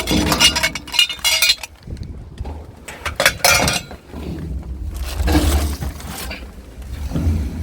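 Hard junk, glassy in tone, clinking and clattering in a few sudden bursts as it is shifted about; the loudest come in the first second and about three and a half seconds in.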